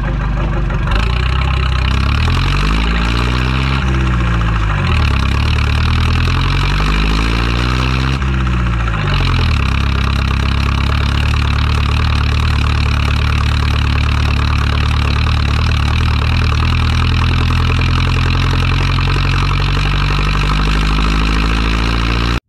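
IHC 845 XL tractor's diesel engine running steadily, with a wavering, rising-and-falling quality to its tone twice in the first half.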